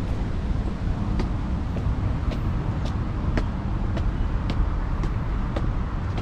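Steady rumble of road traffic, with a faint sharp click about once a second.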